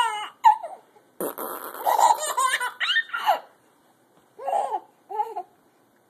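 A four-month-old baby laughing and squealing in short bursts. About a second in there is a sputtering, raspberry-like funny noise from an adult.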